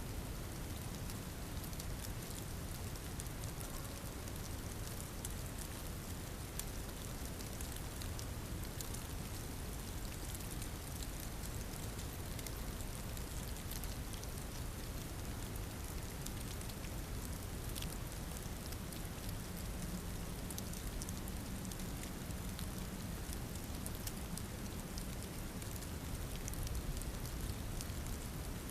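Steady patter and hiss of falling precipitation in a storm, with many fine ticks of drops striking surfaces.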